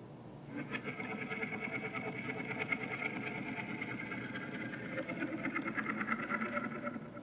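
A small machine running steadily with a fast, even rattling buzz, starting about half a second in and stopping near the end.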